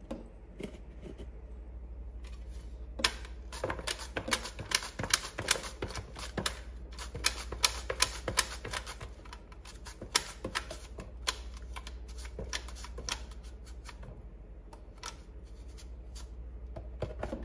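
Yellow squash being sliced on a handheld plastic mandoline slicer: a quick, uneven run of sharp clicks, one for each stroke of the squash across the blade. The clicks begin about three seconds in, pause briefly around the two-thirds mark, and then pick up again.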